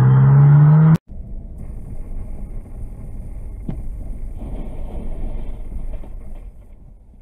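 A loud steady low-pitched tone cuts off sharply about a second in. It is followed by the low engine and road rumble heard from inside a moving car, with a single click near the middle, fading toward the end.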